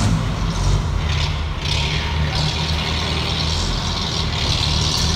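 Delivery truck's engine running, its low steady rumble overlaid by a broad hiss.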